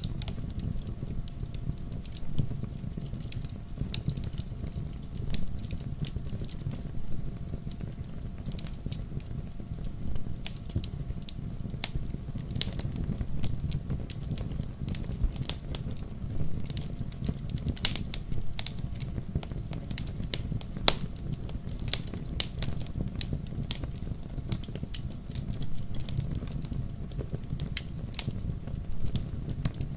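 Wood bonfire crackling, with irregular sharp pops throughout and two louder pops past the middle, over a steady low rumble.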